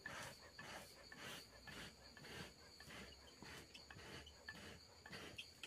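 Bee smoker's bellows being pumped, giving short breathy puffs of air about two a second, over a steady high insect chirring.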